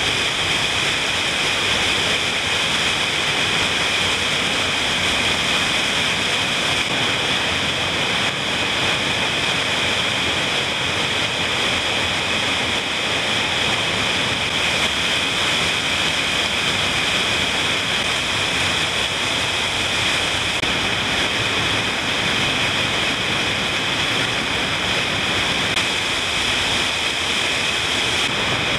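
Small waterfall pouring over rock and splashing into a pool: a steady, unbroken rush of falling and splashing water.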